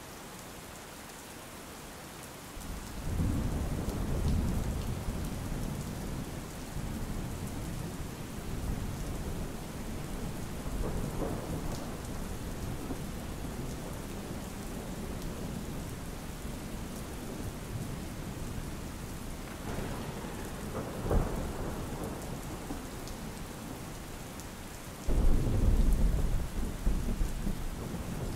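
Steady rain falling, with rolls of thunder. A rumble builds about three seconds in, a short sharp crack comes a little after twenty seconds, and a loud rumble starts suddenly near the end.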